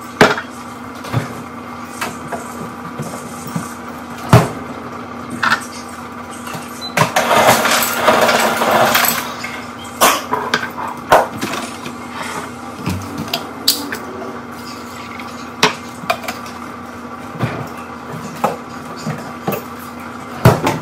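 Glassware, bottles and ice being handled on a kitchen counter: scattered clinks and knocks, a longer clattering stretch about seven to nine seconds in, over a steady low hum.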